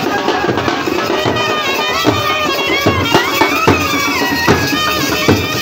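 Traditional Indian-style background music: a reedy wind-instrument melody over drums.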